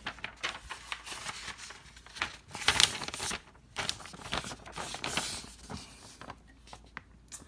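A sheet of paper being pulled out of a typewriter and handled: dry rustling and scraping in several stretches, with scattered small clicks, dying down near the end.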